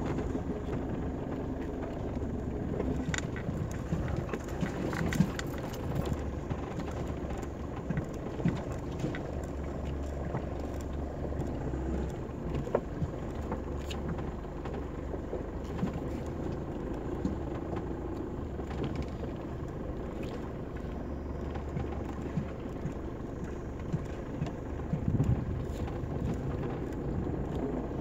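Mitsubishi Pajero Mk2 driving over a rough dirt track, heard from inside the cabin: the engine runs with a steady low drone, with scattered knocks and rattles from the bumpy ground.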